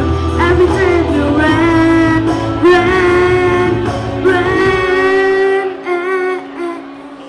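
A boy singing a pop ballad into a microphone over a backing track, his held notes wavering with vibrato. About six seconds in, the low backing drops away and the level falls as the sung line trails off.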